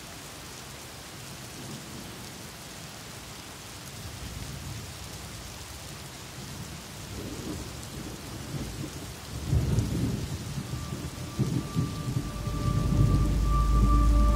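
Steady rain falling on wet pavement. A low, uneven rumble builds from about halfway through and grows louder toward the end, and a steady held tone joins in during the last few seconds.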